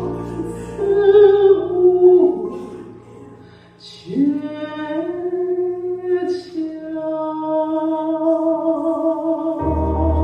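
Live music with a female voice holding long, drawn-out notes over sparse accompaniment. The melody fades, then re-enters with a short upward slide, and the bass comes back in near the end.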